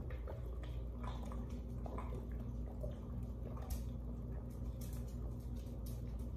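A man gulping down a thick chocolate mass-gainer shake with ice from a plastic shaker bottle: faint swallowing and liquid sounds with small scattered clicks, over a steady low hum.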